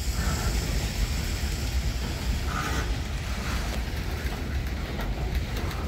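Freight train of boxcars rolling slowly past, a steady low rumble of steel wheels on rail, with a brief high squeal about two and a half seconds in. The train is slowing as it pulls onto a siding.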